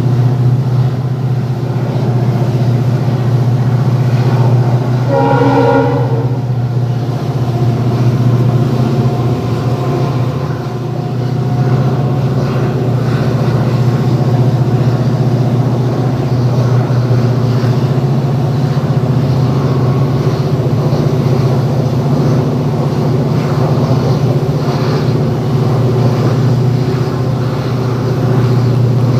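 WDG4 (EMD GT46MAC) diesel locomotive working under way with a steady low engine drone, heard from the train it hauls. Its horn sounds once about five seconds in, for roughly a second and a half.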